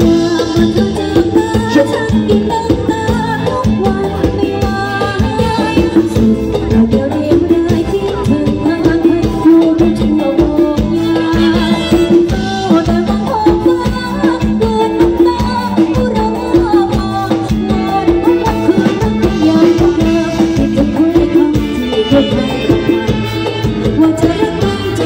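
Live band playing Thai ramwong dance music over loudspeakers, with a steady drum beat and a woman singing.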